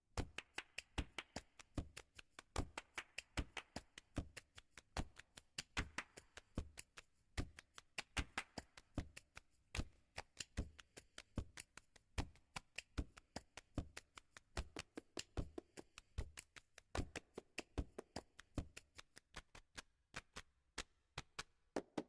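Rapid percussive taps and knocks, a few a second, keeping up a rhythm through a background music track.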